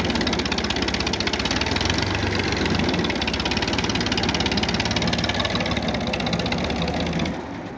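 An engine running steadily with a fast, even beat. The level drops shortly before the end.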